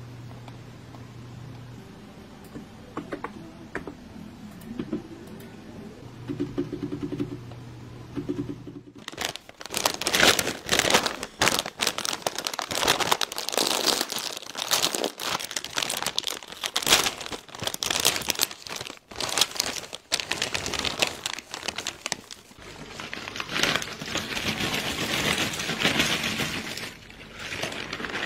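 A low hum with a few faint clicks, then, about a third of the way in, loud crinkling and tearing of a plastic snack bag being ripped open and handled, which goes on to the end.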